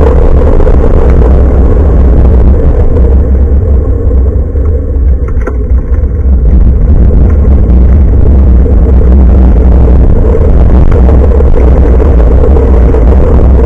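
Wind rumbling hard on the microphone of a handlebar-mounted action camera on a moving bicycle: a loud, steady low rumble that eases briefly a few seconds in and then comes back.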